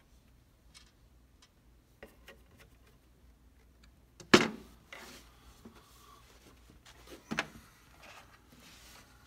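Clicks and knocks of lock parts being handled: a sharp snap about four seconds in as the cover faceplate is pressed onto the mortise lock's faceplate, a second knock about three seconds later, and light clicks of small metal parts in between.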